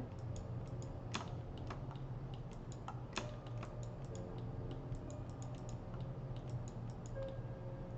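Computer keyboard keys clicking irregularly, scattered single presses and short runs, over a steady low hum.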